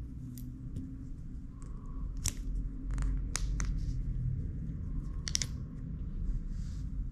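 Silicone protective case being worked and pulled off a Garmin Forerunner 955 sports watch by hand: soft rubbery rubbing with a series of sharp little clicks, several of them between two and four seconds in and a quick pair about five seconds in.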